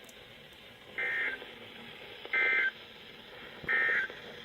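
Emergency Alert System end-of-message data bursts on NOAA Weather Radio: three short bursts of shrill two-tone digital data, about 1.3 seconds apart, over faint radio hiss. They signal the end of the severe thunderstorm warning message.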